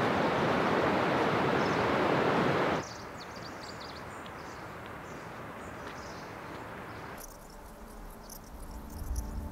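Outdoor mountain ambience in three cuts. First a loud, steady rushing noise that stops abruptly about three seconds in. Then a quieter forest backdrop with birds chirping, and from about seven seconds a fast high chirring of crickets, with a low rumble near the end.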